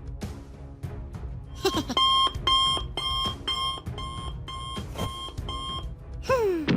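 Electronic alarm beeping, eight pitched beeps at about two a second, over background music. Near the end a tone falls in pitch.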